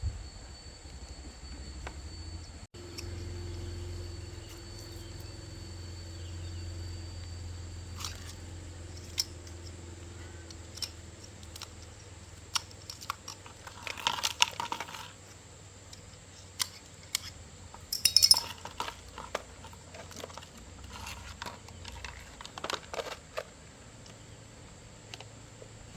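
Scattered clinks, taps and rattles of tools and small parts being handled, over a steady low hum. The clinks bunch into two louder clusters about halfway through and again a few seconds later.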